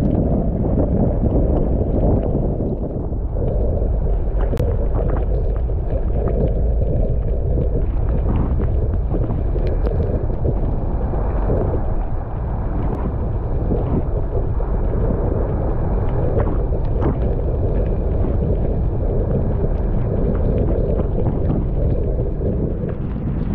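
Off-road 4x4 being driven over a rough trail: the engine runs steadily along with rumbling track noise, and wind buffets the microphone, with occasional short knocks from the vehicle.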